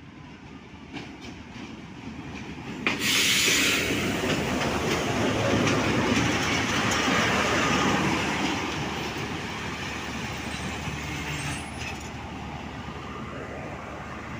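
Pakistan Railways diesel locomotive 8052 pulling into a station and passing close by, followed by its passenger coaches rolling past on the rails as the train slows to stop. The sound grows, jumps suddenly louder about three seconds in as the locomotive draws level, and eases to a steadier rumble of coaches after about eight seconds.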